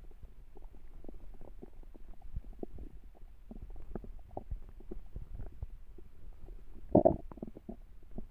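An empty human stomach growling from hunger: a run of short, irregular gurgles with one louder, longer gurgle about seven seconds in.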